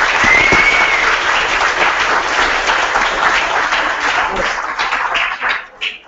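Audience applauding; the clapping dies away near the end.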